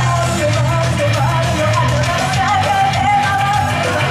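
Japanese idol pop song: a vocal melody sung over a loud backing track with a steady bass line.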